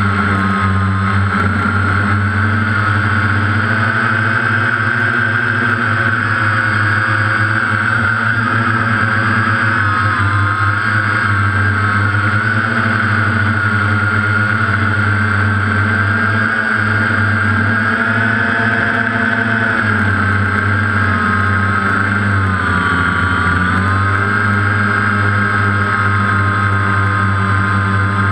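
DJI Phantom quadcopter's motors and propellers whirring steadily, heard close from on board the drone as it flies; the pitch wavers slightly and dips briefly a little past two-thirds of the way through.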